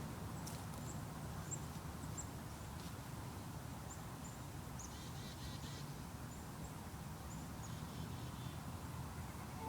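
Outdoor ambience: a steady low rumble under faint, short, high bird chirps that repeat throughout, with a brief burst of chirping about five seconds in.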